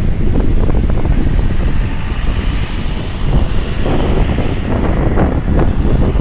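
Road traffic passing below, with wind buffeting the microphone in an uneven low rumble.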